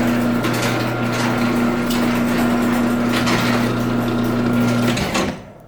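Chamberlain garage door opener motor running steadily with a hum as it moves the door, activated by the newly programmed remote. It stops about five seconds in, followed by a few sharp clicks.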